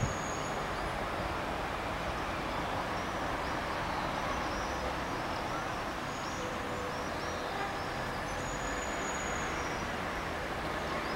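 Steady outdoor background rumble, like distant road traffic, with faint high chirps repeating throughout.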